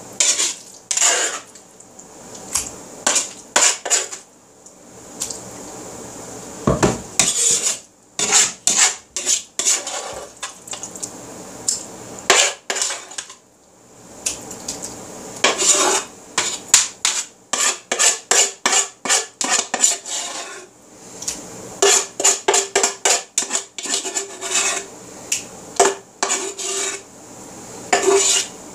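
Metal spoon scraping and clinking against a wooden bowl as thick, creamy pot pie filling is scooped out, in quick runs of short strokes with brief pauses between them.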